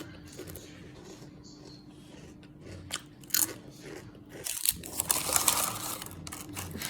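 A person biting into a toasted tuna sub sandwich and chewing it with a crunch close to the microphone: a few sharp crunches about three seconds in, then louder, steadier crunching chewing from about halfway through.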